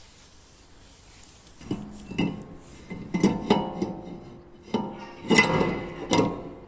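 Metal tools and parts clanking and clinking against each other, with a short ring after each knock, about eight knocks from a couple of seconds in.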